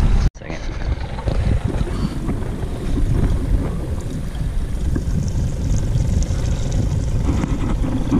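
Wind buffeting the microphone on an open fishing boat: a steady, rumbling low roar that drops out abruptly for an instant about a third of a second in.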